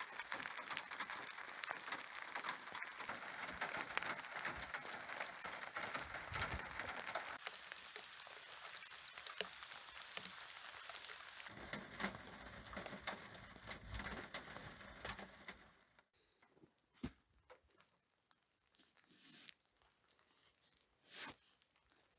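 Rain pattering on a surface: a dense hiss of drops with many fine ticks. About sixteen seconds in it falls away to faint, scattered drips.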